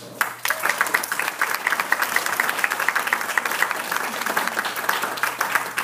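Audience applauding, many hands clapping at once; the clapping starts suddenly and eases off near the end.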